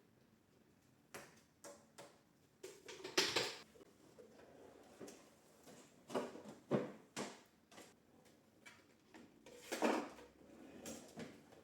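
Household handling noises: a dozen or so irregular knocks and clicks of objects being picked up and set down, with a short sliding scrape about three seconds in and a louder knock near the end.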